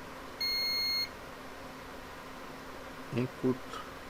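Multimeter continuity beep: one steady high tone of about half a second, sounding because the probes are across a short-circuited capacitor on the board's supply line. A steady low hum runs underneath, and two brief low sounds come about three seconds in.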